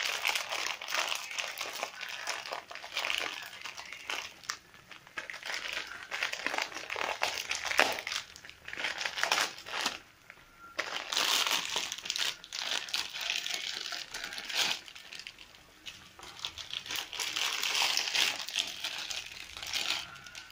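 Plastic packet of sotanghon glass noodles crinkling and rustling as it is handled and opened, on and off, with a pause about halfway through.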